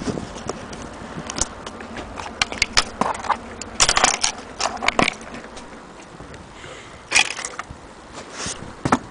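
Small objects being handled: irregular clicks and knocks mixed with short rustling, busiest about four to five seconds in and again near seven seconds.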